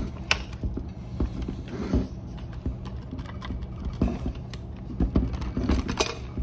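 A steel military surplus ammunition can being handled, with fingers working at its lid latch: a run of irregular metal clicks and knocks, with the loudest knocks about two seconds in and again near the end, over a steady low hum.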